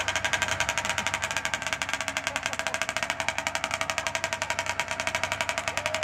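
Modified two-stroke racing chainsaw (a hot saw with an expansion-chamber exhaust) idling steadily with a rapid, even beat while being warmed up before the race.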